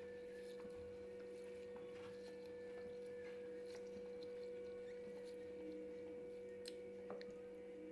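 Faint, scattered soft ticks and clicks of Gobindobhog rice grains being stirred by hand in a bowl of water, over a steady low electrical hum.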